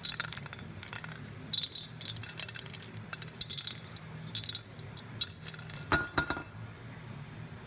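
Aerosol primer can being shaken, its mixing ball rattling in short bursts about once a second. Near six seconds in, the metal can knocks down onto a hard surface with a ringing clank.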